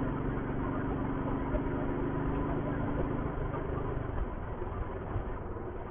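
Royal Enfield Thunderbird's single-cylinder engine running at a steady cruise under the rider. Its steady note grows weaker after about three seconds.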